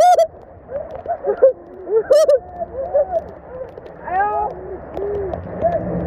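Several voices calling and shouting out without words, short overlapping rising-and-falling cries, over a low steady rumble.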